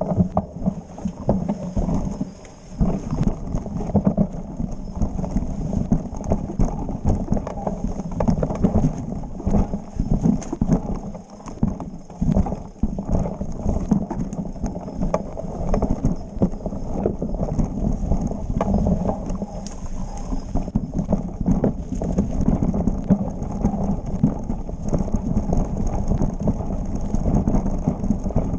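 Mountain bike descending a rough dirt trail, heard from a camera mounted on the bike: continuous clattering and rattling of the chain and frame as it bounces over roots and rocks, with the rumble of tyres on the ground.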